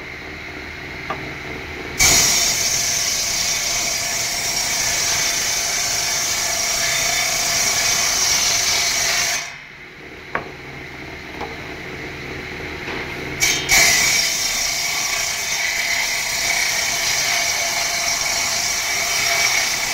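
Table circular saw cutting pallet boards, with two long cuts, one starting about two seconds in and one just before fourteen seconds. Between them the blade runs without load, with a few sharp knocks.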